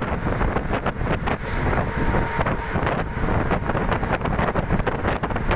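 Heavy wind buffeting on the microphone from a moving vehicle, with steady road and engine noise underneath.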